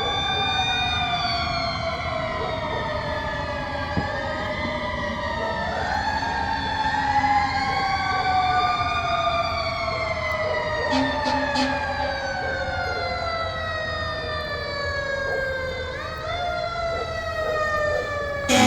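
Fire truck sirens wailing, several at once, their overlapping tones slowly rising and falling in pitch, with a quick rising whoop about sixteen seconds in.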